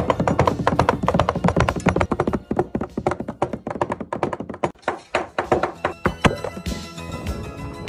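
Two cleavers chopping fast on a wooden chopping block, mincing meat and then greens, a quick steady stream of knocks. The chopping stops about six seconds in, leaving background music.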